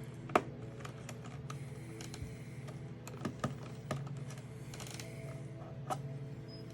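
Small, irregular sharp clicks of a screwdriver taking the screws out of a MacBook Pro's aluminium bottom case, over soft background music.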